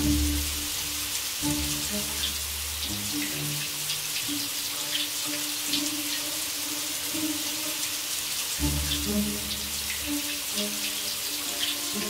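A shower running, its water hissing and splashing steadily on tile. Background music of slow, held low notes plays under it.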